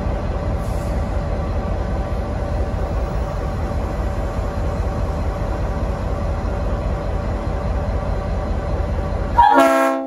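Steady low rumble of an N class diesel locomotive standing at the platform. Near the end, the rumble cuts off and a short blast of its Leslie RS5T five-chime air horn sounds, a loud chord of several notes.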